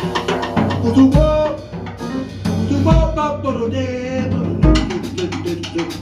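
Live jazz: a male singer holding long sung notes over a small band with drum kit and bass. Deep low drum hits come about every second and a half to two, with light cymbal and percussion strokes between.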